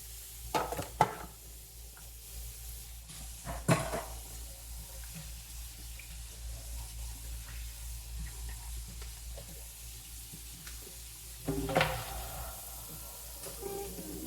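Washing up at a kitchen sink: dishes and utensils knocking together in sharp clatters about half a second in, near four seconds and near twelve seconds, over a steady hiss of running tap water.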